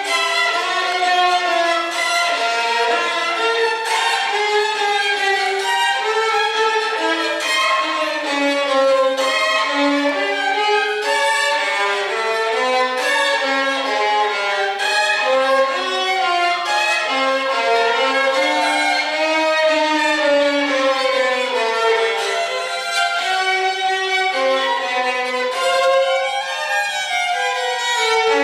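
Violin music: a bowed melody moving from note to note at a steady pace, with other strings under it in places.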